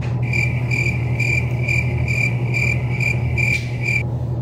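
Cricket-chirping sound effect edited in over an awkward silence, about two chirps a second, starting and stopping abruptly. A steady low hum runs underneath.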